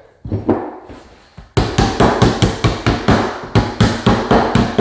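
Hammer tapping the lid down onto a metal gallon paint can to seal it: a few scattered knocks, then from about a second and a half in a fast, even run of sharp strikes, about five a second.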